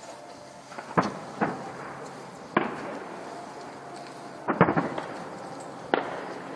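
Aerial firework shells bursting a long way off: about half a dozen sharp booms at uneven intervals, each trailing off in a short echo, with two or three coming close together past the middle.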